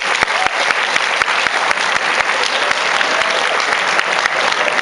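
A lecture-hall audience of students applauding: dense, steady clapping from many hands.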